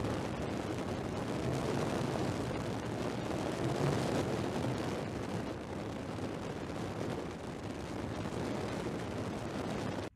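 Car driving fast, heard from inside the cabin: a loud rushing mix of engine, tyre and wind noise that swells to a peak about four seconds in and then eases slightly.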